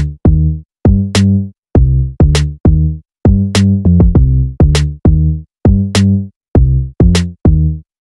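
Background music: an electronic drum-machine beat of short, bass-heavy notes and crisp clicks, cut off in brief gaps between hits.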